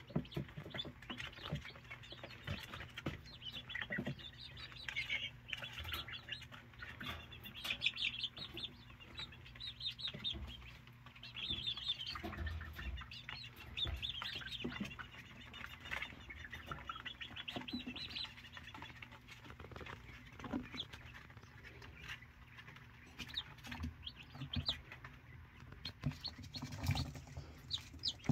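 Young quail peeping and chirping, many short high calls one after another, with scattered sharp taps and a faint steady low hum underneath.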